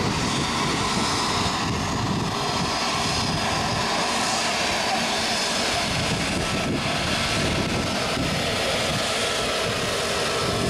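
Airbus A320neo's CFM LEAP-1A turbofan engines running at low thrust as the jet taxies, a steady rumble and hiss with faint steady tones and no change in power.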